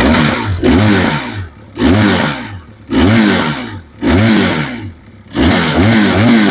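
Benelli 502C's 500 cc parallel-twin engine revved at standstill through its twin-tip exhaust: five sharp throttle blips about a second apart, each rising in pitch and dropping back to idle, cracking like firecrackers.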